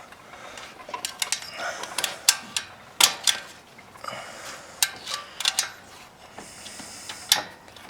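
Irregular metal clinks and knocks as the starter motor is worked loose and pulled out of a Honda Rancher 350 ATV's engine.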